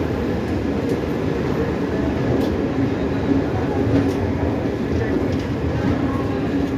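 Train running on its rails: a steady low running noise with a faint hum and a few light clicks.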